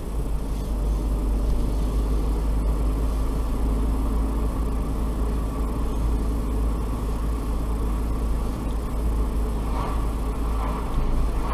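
Car driving along at about 40 km/h, heard from inside the cabin: a steady low rumble of engine and road noise.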